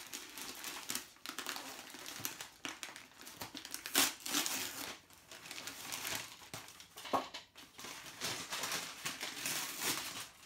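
Brown packing paper crinkling and rustling as it is pulled off and crumpled by hand, in a run of small crackles with a sharper crackle about four seconds in.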